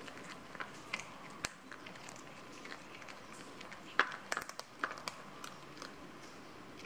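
Cats chewing and crunching fish bones and scraps: irregular sharp crunches, with a quick cluster about four seconds in the loudest.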